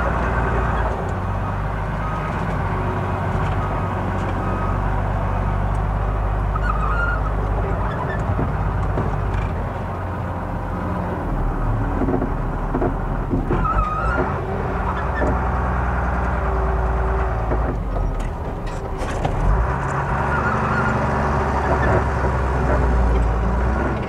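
Truck engine running while driving on a rough dirt road, heard from inside the cab. There are a few short squeaks, and a cluster of knocks and rattles near the end.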